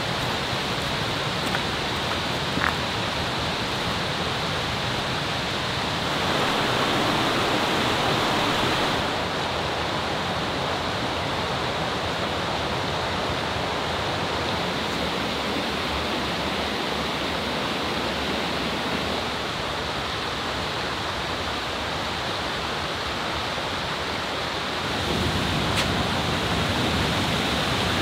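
Mountain stream rushing over rocks in small cascades, a steady sound of running water. It grows louder for a few seconds about six seconds in, and again near the end.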